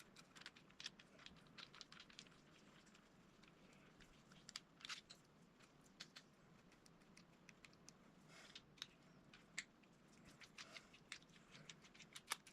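Faint, irregular small clicks and ticks of hand-handled reel parts, with a few slightly louder clicks scattered through.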